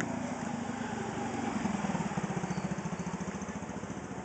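A small engine running with a rapid, even chugging that grows louder about a second and a half in.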